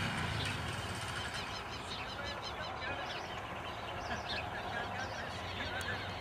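Many short, quick bird chirps over a steady low rumble.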